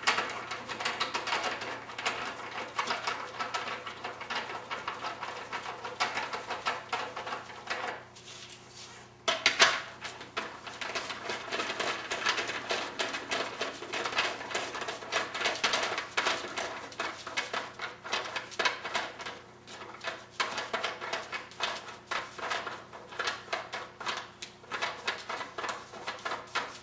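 Leg levelers being screwed by hand into the threaded openings of a wooden cabinet base: a steady run of rapid small clicks and rattles. It pauses briefly about eight seconds in, then comes a single sharp knock.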